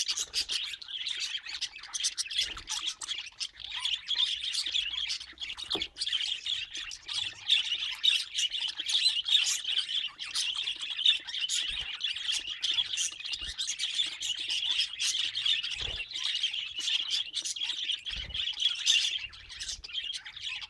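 Budgerigars chattering and warbling without a break, a dense stream of chirps, with quick sharp chirps and squawks throughout.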